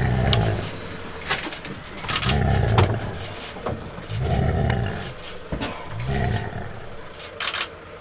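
A big cat giving four deep calls about two seconds apart, each lasting about a second, with a few sharp clicks between them.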